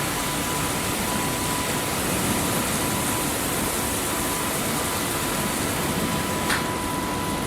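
Automatic car wash machine running with a steady rushing hiss, with a faint steady high tone under it and a short click about six and a half seconds in.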